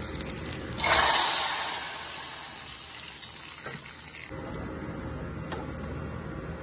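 Hot tadka (oil with dried red chillies and garlic) poured into dal, hissing in a loud sizzle as the hot oil hits the liquid about a second in, then fading for a few seconds before stopping abruptly. A few light clicks just before it.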